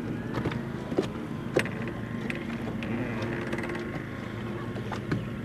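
Electric trolling motor on a bass boat humming steadily, with a few sharp light knocks and taps against the hull.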